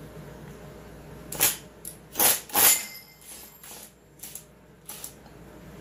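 Irregular metallic clicks and knocks as the clutch is worked off a chainsaw with a socket, about eight sharp strikes, the loudest two in the middle.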